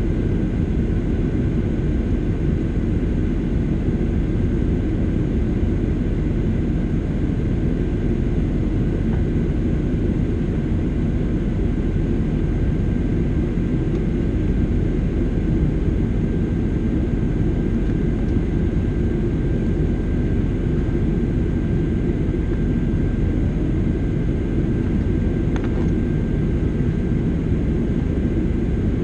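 Boeing 737-800's CFM56 turbofan engines at low thrust while taxiing, heard inside the cabin at a window seat by the wing: a steady low rumble with a thin, steady whine above it.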